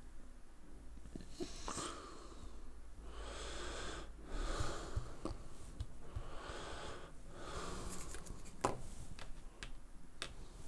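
Several heavy breaths close to the microphone, a few seconds apart. In the last few seconds come a few sharp clicks, a plastic earbud being handled and pressed on the desk.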